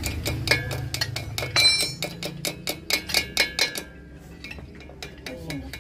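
Steel wrench clicking and clinking against the bolts of a Yanmar TF65 tractor's exhaust pipe as the muffler is unbolted: a quick run of sharp metallic clicks with short rings, dying down after about four seconds, over a low steady hum.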